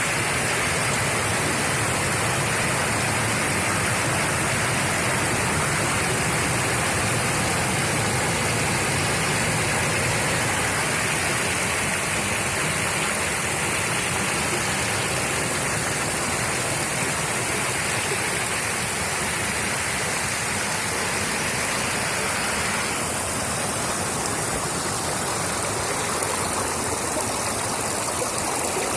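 Small creek running, water rushing and splashing over stones in a steady wash of sound; the texture shifts slightly about three-quarters of the way through.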